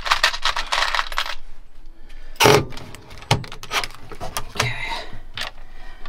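Small hard parts clinking and rattling as they are handled, with a sharp knock about two and a half seconds in and another a second later.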